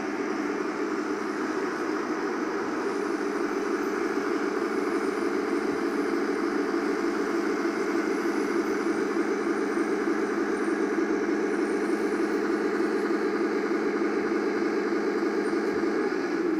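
1/16-scale radio-controlled tank running with a steady mechanical drone that does not break for the whole stretch.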